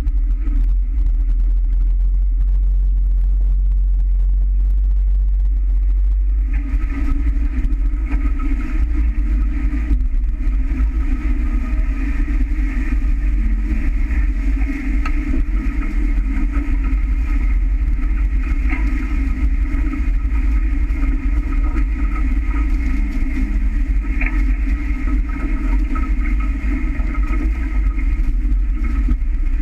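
Wind buffeting the boat-mounted camera's microphone and water rushing past the hulls of a small sailing catamaran under way, a steady low rumble with a hiss that grows louder about six seconds in as the boat picks up speed.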